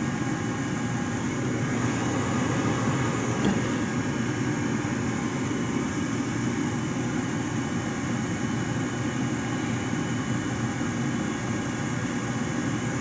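Rheem Criterion gas furnace's blower running on with a steady hum after the burners have shut off, with one light tap about three and a half seconds in.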